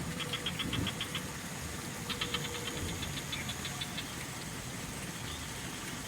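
Frogs calling in rapid trains of clicking pulses: a short train near the start and a longer, faster one from about two seconds in, over a steady background hiss.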